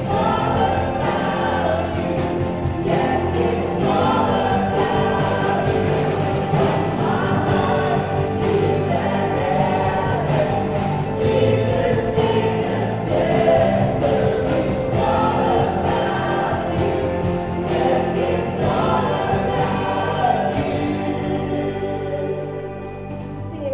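Live worship band playing a contemporary worship song, several singers singing together over keyboards, guitar, bass and drums. The band softens near the end.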